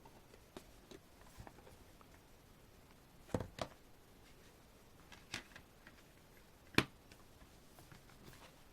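Hands handling a music album's CD and its packaging: scattered light clicks and taps of plastic and paper, the sharpest about three and a half and seven seconds in.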